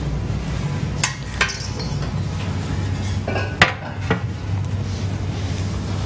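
Metal lifter and baking tray clinking: a couple of sharp clinks about a second in, and a few more around three and a half to four seconds, the loudest in the middle. A steady low hum runs underneath.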